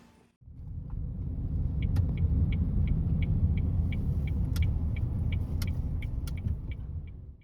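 Suzuki Lapin kei car heard from inside while driving: a steady low road and engine rumble. The turn-signal indicator ticks evenly, about three clicks a second, from a second or so in until near the end.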